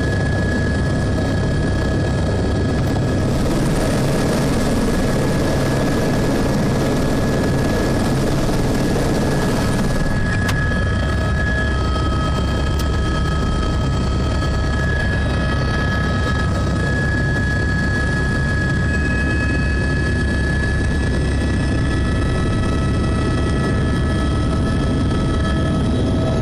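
Helicopter turbine and rotor running steadily on the ground, heard from inside the cabin, with a continuous high turbine whine over the rotor noise. A louder rushing hiss joins in from about 3 to 10 seconds in.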